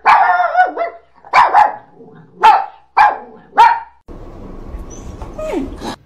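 French bulldog barking five loud, sharp barks about a second apart.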